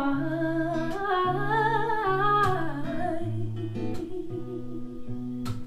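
Live singing over acoustic guitar: a long held, wavering vocal note across the first half, with the guitar chords going on beneath it and the voice coming in again near the end.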